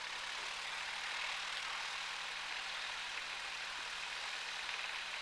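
Single-engine Grumman light airplane's piston engine and propeller running steadily at low taxi power, heard from inside the cabin as an even hiss with a faint low engine hum.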